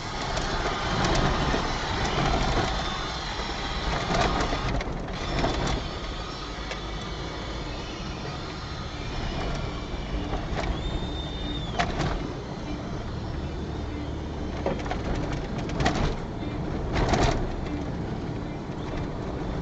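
Cabin noise of a Toyota Fortuner SUV driving on a rough dirt track: a steady engine hum and tyre noise on gravel, with sharp knocks and rattles as it goes over bumps.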